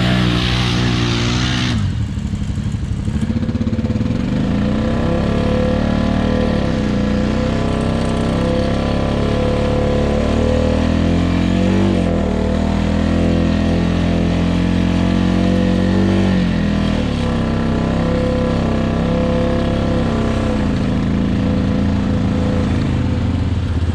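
ATV (quad bike) engine running under way, its revs repeatedly rising and falling. A rushing noise sounds over it in the first two seconds.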